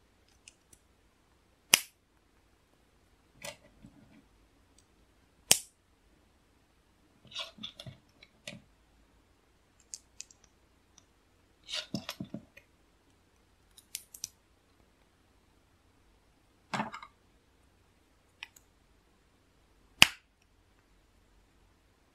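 LEGO pieces clicking and snapping together as they are handled and pressed into place. There are scattered small clicks and rattles, with a few sharp snaps spread through, the loudest near the end.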